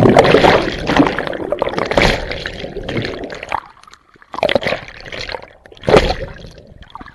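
Lake water churning around an underwater camera after a plunge: a rush of bubbles that fades over about three seconds. Then short bursts of splashing and gurgling as the camera bobs up through the surface and goes under again, about four and a half and six seconds in.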